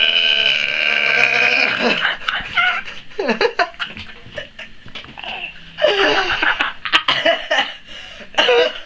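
The tail of a very big, long burp held at a steady pitch, which cuts off about two seconds in. It is followed by laughter in short, broken bursts.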